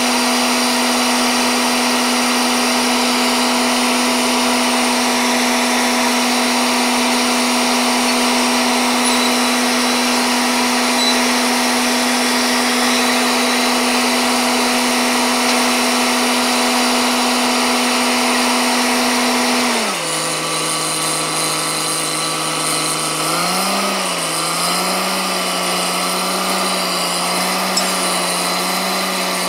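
Truck-mounted borewell drilling rig running steadily, its engine note held high over a loud rushing hiss while water and cuttings are flushed out of the bore. About 20 seconds in, the engine drops to a lower speed, wavers briefly, then settles.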